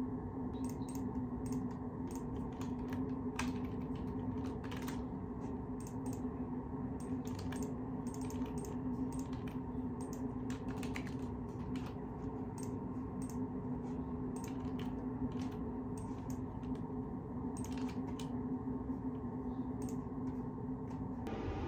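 Typing on a computer keyboard: a steady run of irregular keystroke clicks over a steady low background hum.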